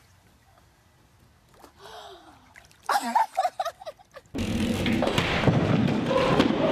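A woman's short vocal sounds and light water splashing as she comes up from under the pool water, after a quiet start. About four seconds in, a sudden loud, dense noise with a steady tone in it takes over.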